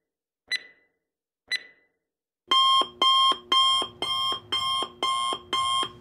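Countdown timer's last-second ticks, two short sharp ticks a second apart, then about two and a half seconds in the electronic alarm goes off at zero: a loud repeating beeping pattern, about two pulses a second.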